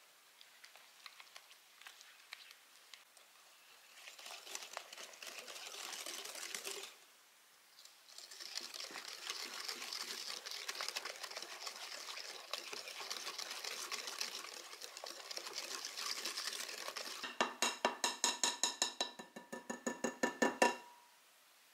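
A wire whisk beating egg into a soft butter and cream-cheese batter in a glass bowl: faint scraping at first, then a steady wet swishing with a brief pause about seven seconds in. Near the end comes a quick run of ringing clinks, about four a second, as the metal whisk knocks against the glass bowl. This run is the loudest part and stops suddenly.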